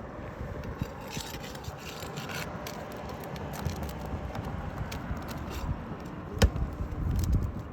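Scraping and rubbing of roofing work on asphalt shingles, with scattered light clicks and one sharp knock about six and a half seconds in.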